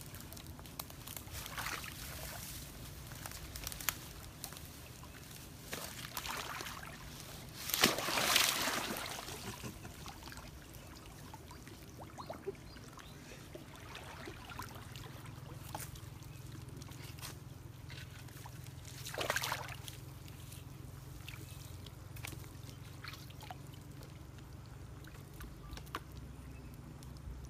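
Shallow stream water sloshing and trickling around a person wading through it, with two louder splashes, about eight seconds in and again about eleven seconds later.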